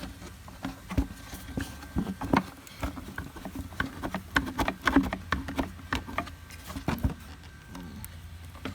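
Irregular clicks and knocks of plastic and metal parts being worked loose and handled, as the intake piece joined to the air filter is taken off a car engine.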